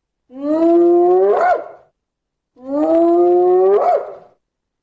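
Hyena calling: two long, howling calls, each rising slightly in pitch and hooking upward at the end.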